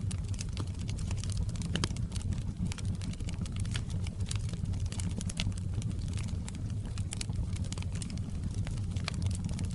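Wood fire burning in a fireplace: irregular crackles and sharp pops over a steady low rumble of the flames.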